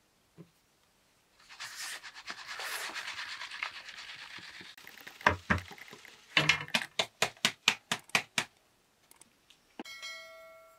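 Wooden drum sieve shaken over a metal bowl, with flour rasping through its mesh. Then comes a loud knock and a quick run of about ten knocks, about five a second, as the sieve is tapped. Near the end one knock sets the metal bowl ringing briefly.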